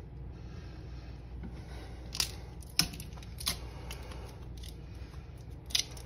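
Hands handling a toilet's braided water supply line at its freshly hand-tightened coupling nut: a handful of sharp clicks, the loudest about two and three seconds in, over a low steady hum.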